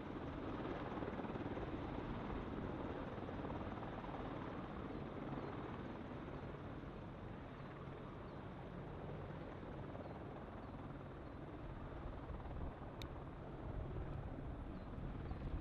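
Helicopter rotor and turbine engines running steadily, with a low rhythmic flutter from the blades. A single sharp click sounds near the end.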